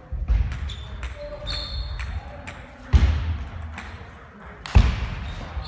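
Table tennis balls clicking on tables and bats around a busy sports hall, with talk in the background and two heavy low thuds, about three seconds in and near the end.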